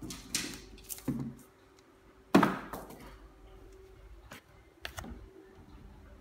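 A cat toy being swatted off a shelf and handled: a few soft bumps in the first second, one sharp thump about two and a half seconds in, the loudest sound, then a few light clicks near the end.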